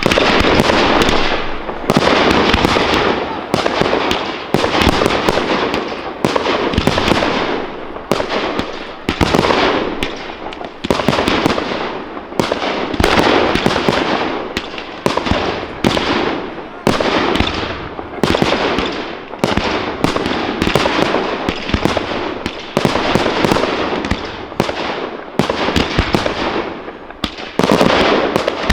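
Fireworks display going off in rapid, continuous salvoes: loud bangs about every second, overlapping with crackling between them.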